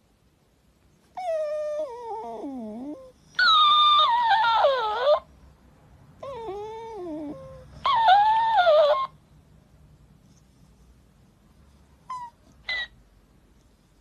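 Shiba Inu whining in long, wavering, falling whines. Each quieter whine is followed at once by a louder, higher-pitched whine of the same shape. There are two such pairs, then two brief faint yelps near the end.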